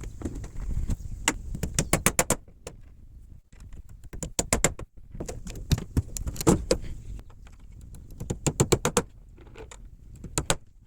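Quick runs of sharp metallic clinks and knocks from shuttering (formwork) work, coming in several bursts with short pauses between them.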